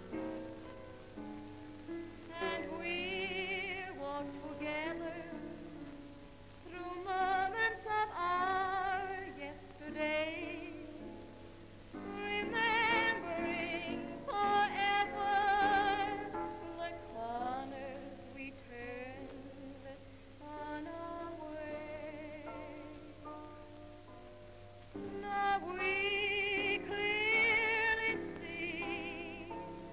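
Female vocalist singing a slow ballad with a wide vibrato, in phrases of a few seconds, over musical accompaniment that carries on alone between the phrases.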